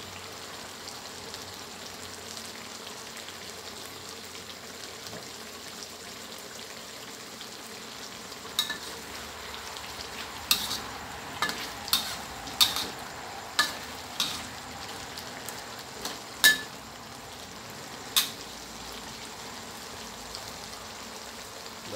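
Catfish and Thai eggplant curry stir-fry sizzling steadily in a metal wok. From a little before halfway in, a metal spatula clanks and scrapes against the wok about ten times, the loudest strike near the end of the stirring.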